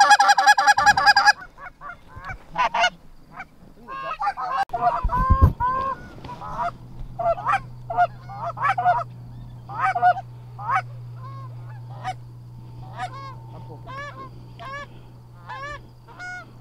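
Canada goose honking: a loud, rapid run of honks in the first second or so, then single and paired honks spaced through the rest. A low steady hum runs underneath from about six seconds in.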